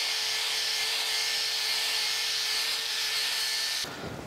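Angle grinder with a wire wheel running steadily against rusted iron, scrubbing rust off an old band saw's adjustment screw and bracket: a steady high whine with the hiss of wire on metal. It cuts off suddenly near the end.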